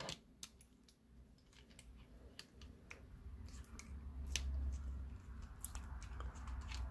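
Faint, scattered clicks and light scraping as a brass Paclock 150 padlock is picked up and handled and a metal tool is fitted into it to start taking the lock apart. A low handling rumble comes in about halfway through.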